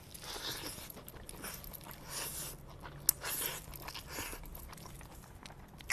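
A person chewing a mouthful of rice eaten by hand: faint, irregular wet chewing and mouth noises, with one sharp click about three seconds in.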